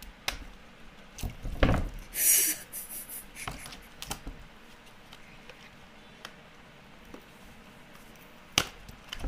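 Handling noises from bathing a wet pet in a plastic basin: scattered clicks, rubs and small splashes. A short hissing splash comes about two seconds in, and one sharp click near the end.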